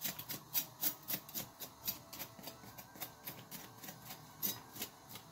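Knife blade scraping the charred, blackened skin off fire-roasted eggplants: quick, irregular scratches, several a second, thicker in the first two seconds.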